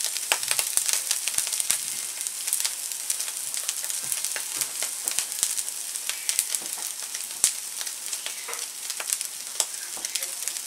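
Sweet shrimp heads sizzling on aluminium foil in a frying pan as they are roasted crisp: a steady high hiss with frequent irregular small crackles and pops.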